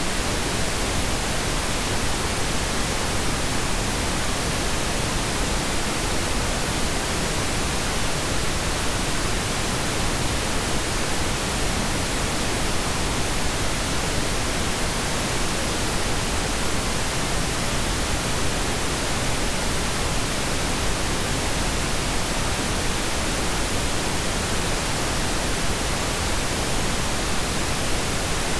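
Steady hiss of broadband recording noise at an even level throughout, with no other sound.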